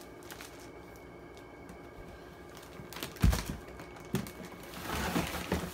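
Handling noises as things are moved about in a small room: a dull thump about three seconds in, a few light clicks and knocks, then a short stretch of rustling near the end.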